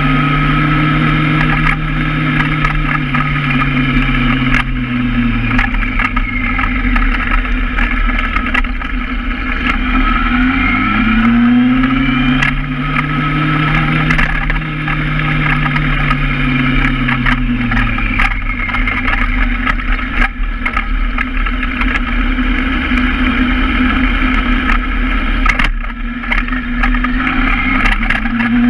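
Honda Hornet motorcycle's inline-four engine ridden through city streets: it pulls and holds revs, eases off about five seconds in, pulls again around ten seconds, then drops to a low, quiet run before revving up again near the end. Wind rushes and buffets the helmet-mounted mic throughout.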